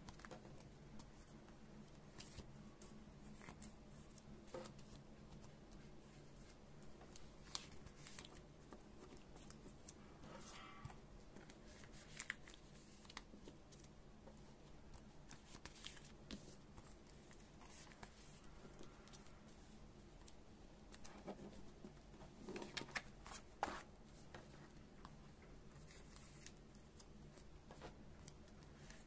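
Faint crinkling and rustling of clear plastic binder sleeves as photocards are handled and slid into their pockets, with scattered light clicks and taps and a cluster of them about three quarters of the way through. A faint steady low hum sits underneath.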